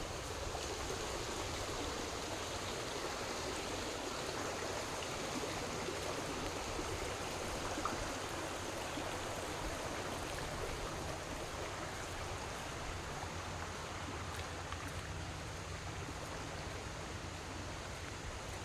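A stream or creek flowing steadily, with water running over rocks.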